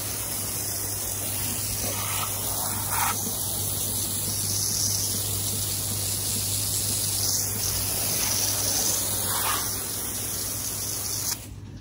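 Garden hose with a pistol-grip spray nozzle spraying water onto composite decking and metal patio furniture, a steady hiss of spray, hosing the deck clean. It cuts off abruptly near the end.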